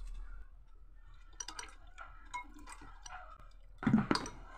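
Steel spoon stirring thin green chutney water in a glass bowl: faint scattered clinks against the glass and drips of liquid, with a louder short sound just before the end.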